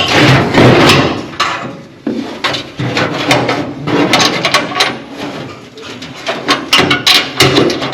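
Metal hand tools clinking and knocking as they are handled and rummaged through, with a drawer-like slide and a series of sharp clicks.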